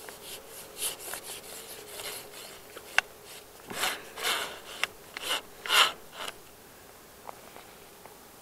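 Close-up handling noise of sleeves and gloved hands moving on a fishing rod: a series of short rustling scrapes, with a sharp click about three seconds in. The loudest scrapes come between about four and six seconds in.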